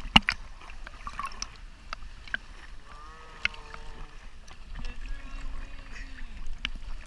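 Scattered sharp knocks and light splashing from a kayak and paddle on the water, the loudest knock just after the start, over a low rumble. Two short held tones come in the middle, one higher and then one lower.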